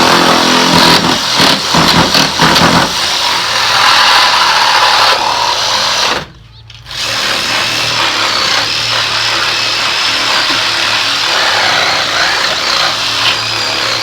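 Power saw running under load as it cuts, with little resistance. It runs in two long stretches with a brief stop about six seconds in.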